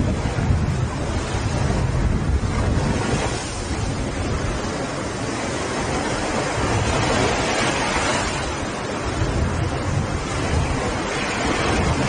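Small waves breaking and washing up onto a sandy beach: a steady surf hiss with a low rumble, swelling every few seconds as each wave breaks.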